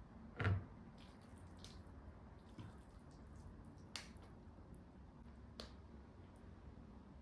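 Eating sounds close to the microphone: one heavy low thump about half a second in, then sparse sharp clicks and faint wet mouth noises.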